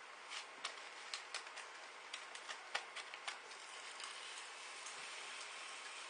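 Popping candy crackling in a mouth: an irregular run of sharp little snaps, busiest in the first three seconds and thinning out after.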